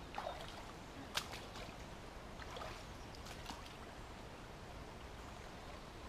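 Shallow brook water splashing and sloshing as branches and debris are pulled by hand from a blockage, with a single sharp snap about a second in.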